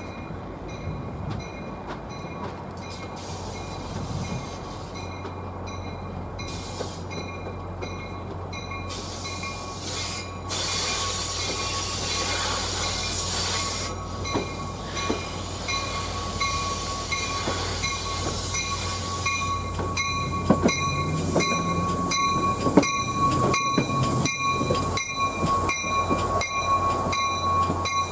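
A train rolling through the rail yard: a steady low engine hum under a thin, steady high wheel squeal. From about two-thirds of the way through, the wheels click over rail joints in a regular rhythm as the sound gets louder.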